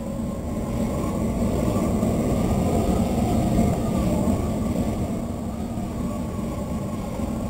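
Large propane gas flame roaring up out of a steel drum, swelling during the first second and then holding loud and steady.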